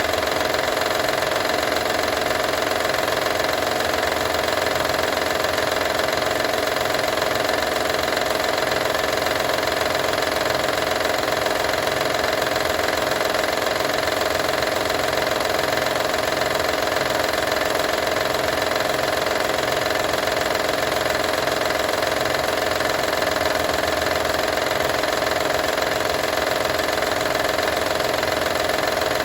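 2012 Honda Odyssey's V6 running steadily, with the rattle its owner wants diagnosed.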